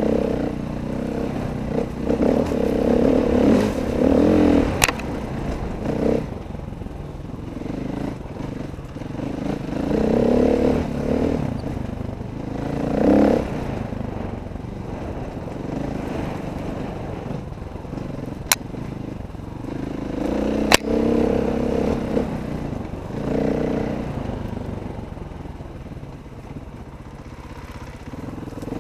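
Dirt bike engine heard from on the bike, revving up and easing off again and again as it rides a rough trail, with a few sharp knocks and some clatter.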